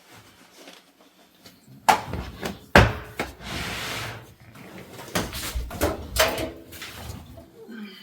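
Clothes being loaded into a new top-loading washing machine: two sharp knocks about two and three seconds in, a stretch of rustling, then several lighter clicks and knocks.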